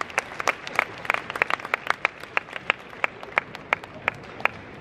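Spectators' applause between points in a table tennis match, settling after about a second into steady rhythmic clapping at about three claps a second.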